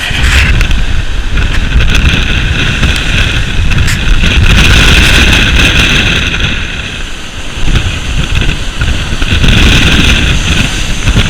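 Rough sea surf with the hiss of breaking waves under heavy wind buffeting the microphone, easing briefly about seven seconds in.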